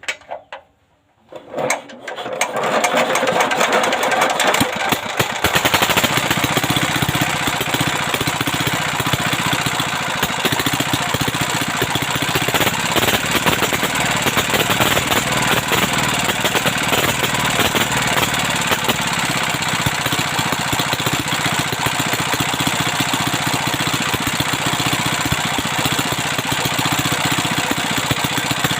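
A repaired 175F single-cylinder diesel engine starts about two seconds in and then runs steadily.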